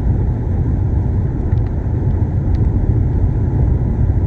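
Car driving at highway speed, about 110 km/h: a steady low rumble of tyres and engine.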